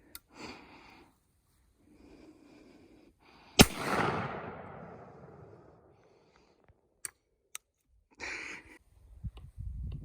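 A single shotgun shot about three and a half seconds in, its report echoing away over about two seconds.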